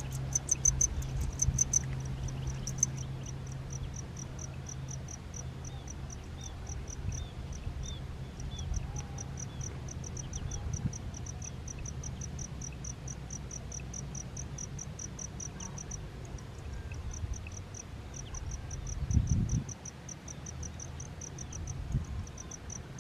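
Insect chirping in an even, unbroken pulse of short high chirps, about four a second, with a few faint high peeps from ducklings in the first half. A brief low rustle swells up near the end.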